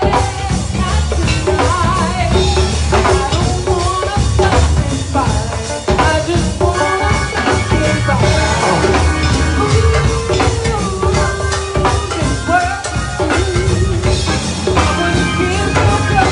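Live go-go band playing: a steady drum-kit and percussion groove with a singer's voice over the band.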